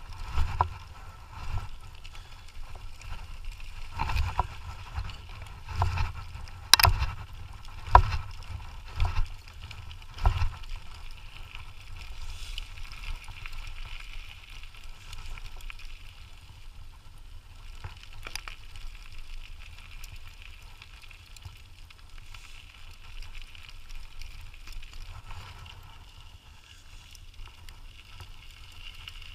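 Dog scooter rolling along a rough trail behind two pulling dogs: a steady rumble of the tyres with sharp knocks and rattles from bumps, frequent in the first ten seconds and then mostly steady running.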